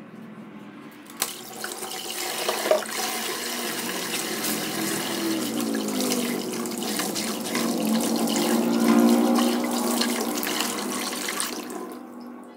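Water running from a kitchen tap into the sink, starting with a click about a second in and stopping near the end.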